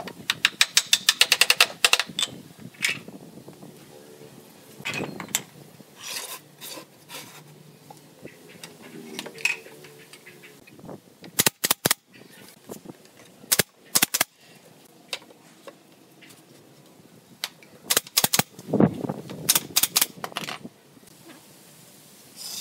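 Pneumatic nail gun firing nails into pine boards: a rapid string of about a dozen shots at the start, then single and paired shots later on.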